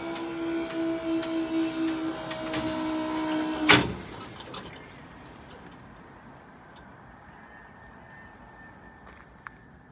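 SPX level-crossing barrier booms rising to upright: a steady, slightly falling whine from the barrier mechanism that ends about four seconds in with a sharp clunk as the booms stop. After that only a low, quiet outdoor background.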